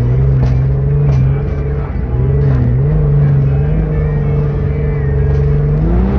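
Off-road dune buggy's engine running steadily while driving across sand. Its pitch dips briefly about two seconds in and rises near the end as the throttle opens.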